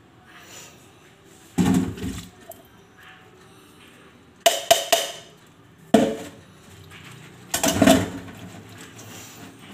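Kitchen dishes and utensils being handled: four separate bouts of knocking and clinking, with the sharpest, a quick run of clicks, about halfway through.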